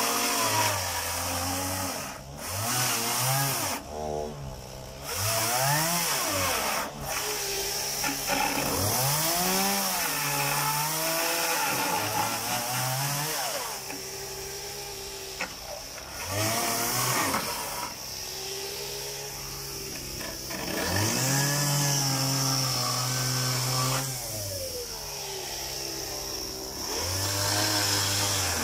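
Two-stroke petrol chainsaw cutting through wooden crate boards. It revs up to full speed for cuts of a few seconds and drops back to a low idle in between, over and over, with rising and falling whines as it speeds up and slows down.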